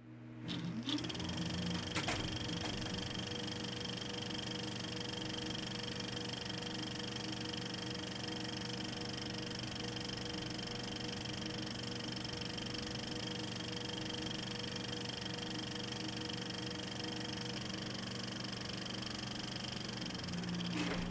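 Steady mechanical whirring hum of a running machine, with a few clicks in the first two seconds.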